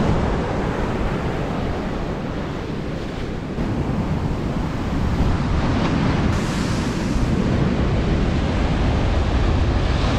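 Ocean surf breaking and washing up a sandy beach, with wind rumbling on the microphone.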